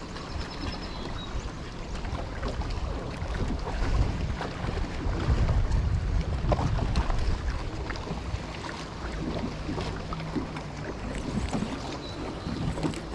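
Wind buffeting the microphone on a small fishing boat on choppy open water, with scattered light ticks; the gusts are strongest in the middle.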